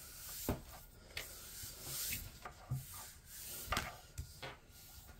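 A paper sheet sliding and rubbing on a wooden tabletop, with a few light taps.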